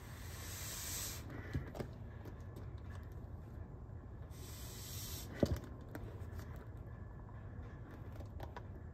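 Air hissing through a bag-valve-mask resuscitator as its self-inflating bag is squeezed into an adult mask on an infant manikin, twice, each hiss lasting about a second. Sharp plastic clicks and a knock from handling the mask and valve come between the hisses, the loudest a little past halfway.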